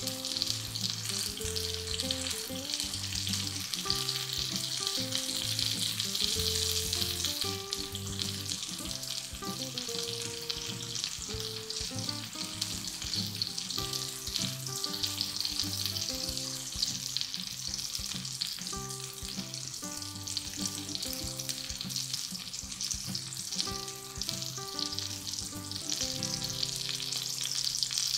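Tomato slices, green peppers and mushrooms frying in oil in a stone-coated pan, with a steady sizzle. Background music of held notes plays underneath.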